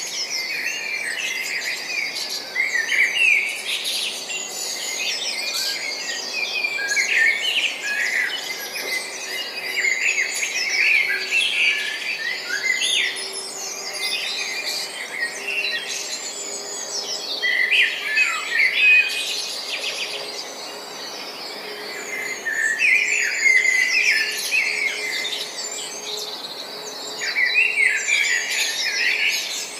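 Several small birds chirping and twittering at once: a dense, continuous chorus of quick high chirps and trills that overlap throughout.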